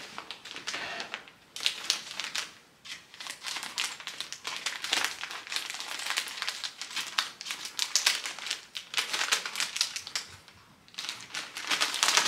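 Plastic packaging of a pack of microfiber cleaning towels crinkling as it is handled and opened. It comes in bursts, with a couple of short pauses.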